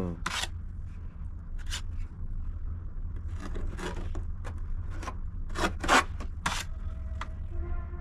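Irregular short scraping and rubbing strokes, about a dozen, the loudest about six seconds in, over a steady low rumble.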